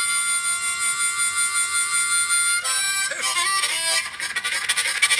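Solo harmonica playing a train-imitation piece. It holds one chord for about two and a half seconds, then bends a note downward and breaks into fast, even, chugging rhythmic notes.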